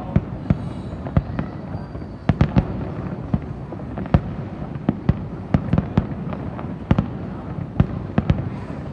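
Aerial fireworks display bursting: irregular sharp bangs, about two or three a second, over a continuous low rumble of overlapping distant bursts.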